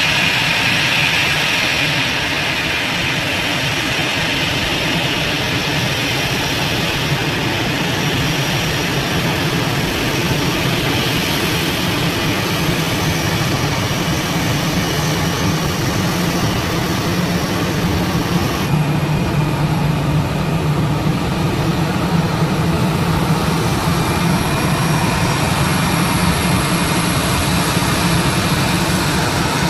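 Airbus A320 jet engines running at low taxi power, a steady rumble with a hiss above it. Shortly before two-thirds through, the sound shifts abruptly to a duller, lower rumble.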